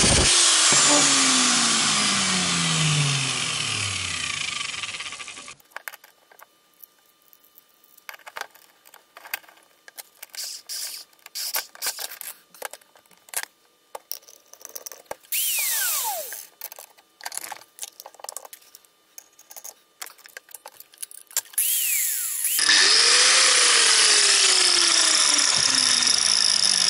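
Hitachi angle grinder's electric motor running, then switched off and spinning down over the first five seconds or so, running smoothly after its commutator was cleaned and its gears greased. Clicks and knocks of handling follow as the tool is worked on. About 22 seconds in, the grinder is switched on again and runs steadily at full speed.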